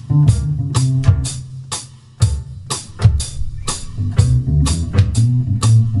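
Live fusion band playing: a drum kit with sharp, regular snare and cymbal hits over a low double bass line.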